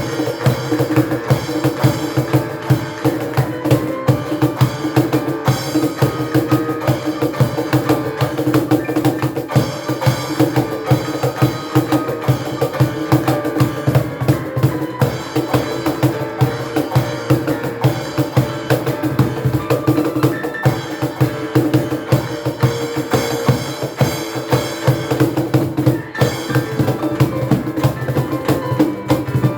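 Live ensemble music: a street piano played with a cajon and other hand percussion keeping a steady, fast beat.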